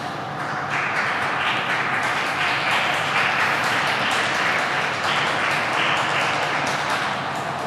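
Audience applauding, the clapping swelling about a second in and easing toward the end.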